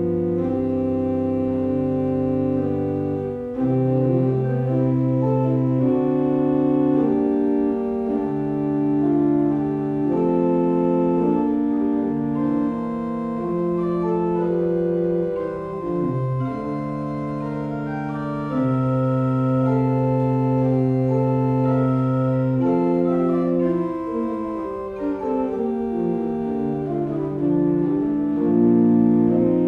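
Pipe organ playing a slow tiento de falsas, a 17th-century Spanish organ piece: held chords in several voices, with notes sustained and overlapping as the parts move slowly beneath and above one another.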